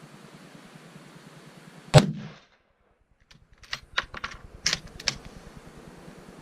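A single gunshot about two seconds in, dying away quickly, followed a second or so later by a quick run of about six sharp clicks and clacks.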